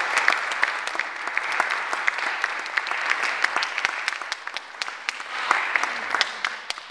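Audience applauding, many people clapping, the clapping thinning out near the end.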